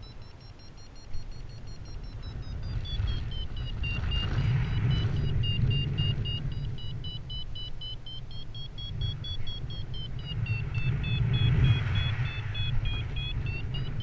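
Paragliding variometer giving rapid beeps, its pitch drifting slowly down and back up with the climb rate, the tone it sounds while the glider is climbing in rising air. Underneath, wind rumbles on the microphone, swelling twice and loudest near the end.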